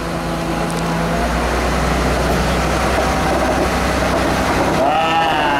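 Diesel engine of a road-rail excavator running steadily as the machine drives along the track on its rail guide wheels, growing a little louder over the first couple of seconds as it comes closer.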